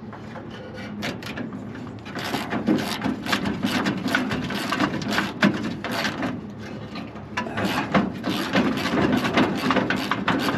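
Hand wrench working a rusted fastener on an old car's grille: a quick run of scraping, rasping metal clicks, starting about two seconds in.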